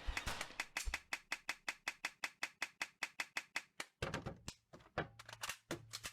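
A rapid, even train of sharp taps or clicks, about seven a second, for about four seconds, then sparser, irregular taps.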